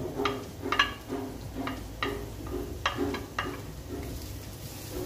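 Wooden spoon knocking and scraping against a nonstick frying pan as sliced onion and minced garlic are stirred in oil, a string of irregular clicks and taps.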